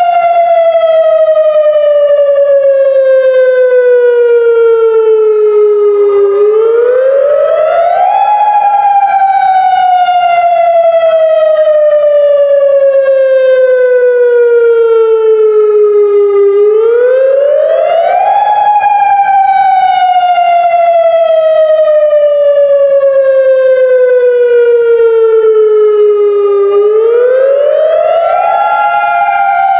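Federal Signal Modulator 3012 electronic civil defence siren sounding its attack signal, a loud, steady wavering tone. About every ten seconds the pitch climbs quickly over a couple of seconds, then slides slowly back down; three climbs are heard.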